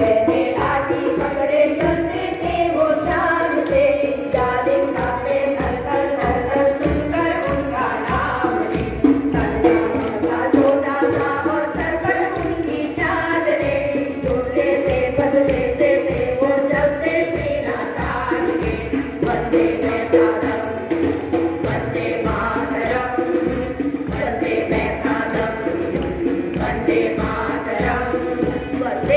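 A group of women singing a devotional bhajan together in unison, with sustained, gliding sung lines over a steady beat.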